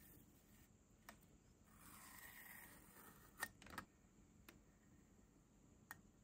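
Near silence broken by a few faint clicks of steel tweezers against a plastic model car body, the two loudest about three and a half seconds in, and a soft rustle about two seconds in as masking tape is peeled away.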